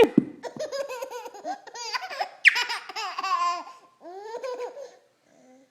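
A baby laughing in a run of short, high-pitched bursts, with a squeal about halfway through, then falling quiet near the end.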